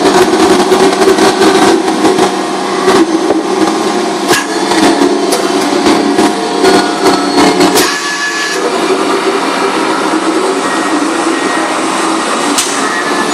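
Loud industrial machinery noise in a paper-converting plant: a steady hum with frequent sharp knocks and clatters.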